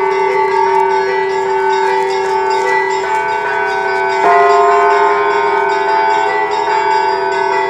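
Russian Orthodox church bells rung by hand for Easter: quick strokes on the small bells over the sustained hum of the larger bells. A heavier bell stroke sounds about four seconds in.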